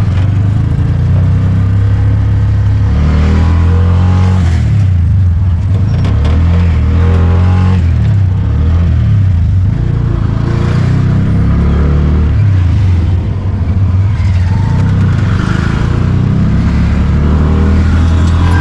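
Engine of the vehicle being ridden, running close by with its pitch stepping up and down as the throttle changes, along with the rush of traffic passing several times.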